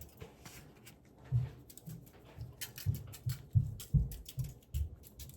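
Soft, irregular thumps with light clicks, about two or three a second, from a spice container being shaken and tapped over fish fillets while seasoning them.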